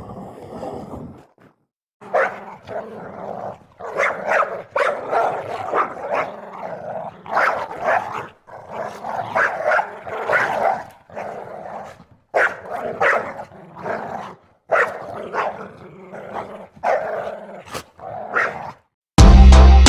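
A dog barking in a long run of short bursts with brief pauses between them. Music with a beat cuts in near the end.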